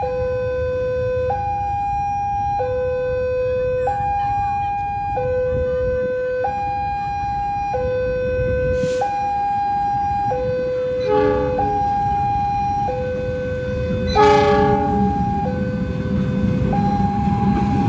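Railway level-crossing warning siren alternating between a low and a high tone, each held about a second and a quarter, signalling that a train is coming. A louder burst sounds about fourteen seconds in, and the rumble of the approaching train builds near the end.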